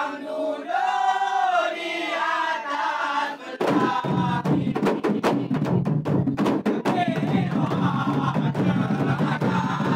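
A group of men chant in unison. About three and a half seconds in, a troupe of kompang (hand-struck Malay frame drums) comes in with rapid, interlocking beats, and the chanting continues over the drumming.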